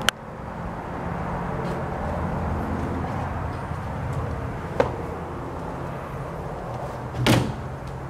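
Steady outdoor background noise with a low hum. A sharp click comes right at the start, another about five seconds in, and a louder short thump about seven seconds in.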